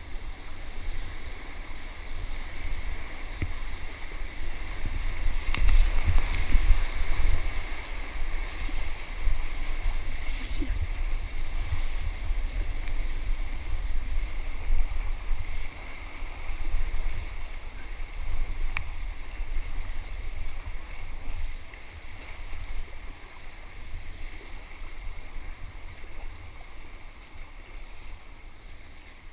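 Rushing, splashing whitewater of a river rapid heard from an inflatable kayak running through it, with a steady low rumble underneath. It is loudest a few seconds in and eases off toward the end as the water calms.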